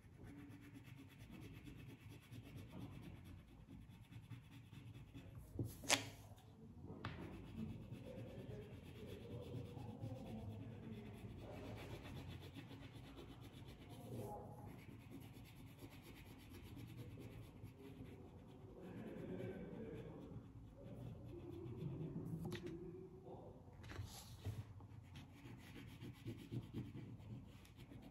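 Crayon rubbing and scratching on paper while colouring in, faint and continuous, with a couple of sharp clicks, the loudest about six seconds in.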